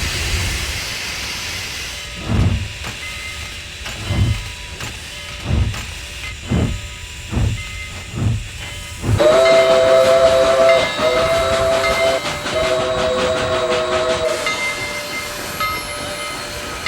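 Steam locomotive starting off: a steady hiss of steam with slow exhaust chuffs about one a second. Then its chime whistle sounds three blasts, each a chord of several tones.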